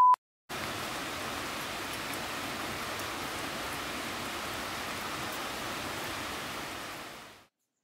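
Steady rain falling, an even hiss that fades out about seven seconds in.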